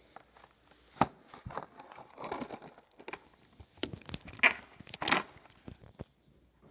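Plastic clicking and scraping as the snap-on cap of a clear plastic toy tube is pried off by hand: scattered sharp clicks, with a loud one about a second in.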